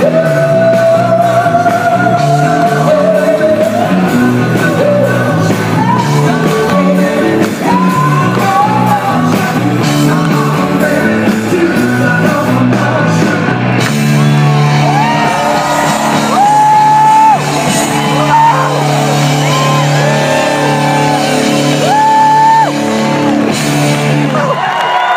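Live rock band with a male lead singer playing through a large hall's PA: drums drive a steady beat under the vocal for the first half. About halfway through, the band holds a long sustained chord while the singer belts drawn-out notes over it. The chord cuts off just before the end.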